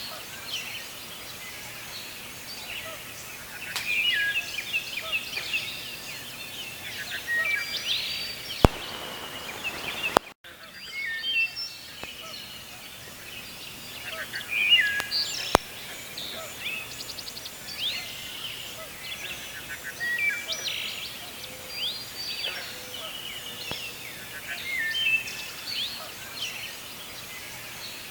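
Songbirds singing: short chirping phrases repeated every few seconds over a steady background hiss, with two sharp clicks.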